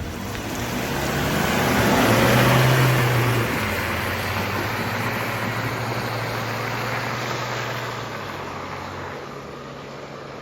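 A 4x4 making a mud drag run. Its engine and tyre noise build to a peak about two to three seconds in, then fade as it moves away.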